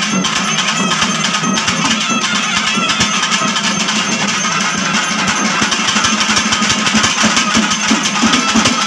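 Live festival band music: double-headed barrel drums beaten in a fast, dense rhythm, with wind instruments holding notes over the drumming.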